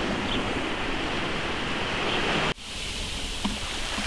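Steady wind and sea-surf noise. It cuts off sharply about two and a half seconds in and comes back slightly quieter.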